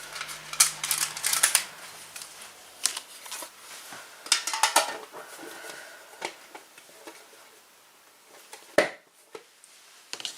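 Scattered clicks, taps and rustles of a metal trading-card tin and foil card packs being handled, busier in the first half and sparser later with one sharp click near the end.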